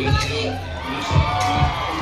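Dance music over the club sound system, with a kick drum beating about twice a second over a deep bass line, and a crowd cheering.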